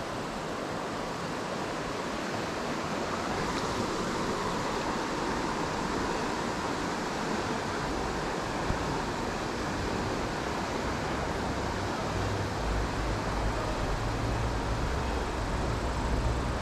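Mountain river water flowing over rocks, a steady rushing hiss. From about eleven seconds in, low rumbling wind buffets the microphone.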